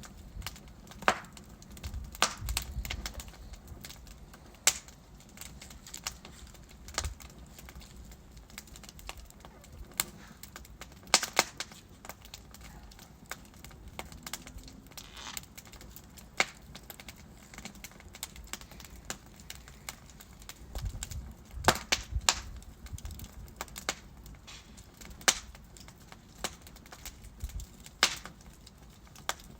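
Wood fire crackling: burning logs give off irregular sharp pops and snaps over a low, steady rush of flame. Clusters of louder pops come about eleven seconds in and again about two-thirds of the way through.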